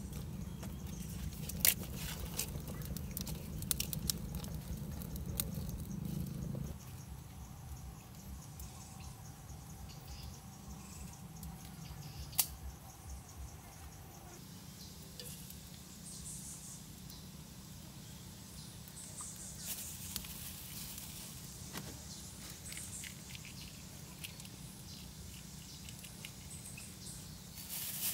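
Wood fire crackling in a clay fireplace, with scattered sharp pops over a low rush. It stops abruptly about seven seconds in, giving way to quieter forest ambience with a high, steady insect buzz.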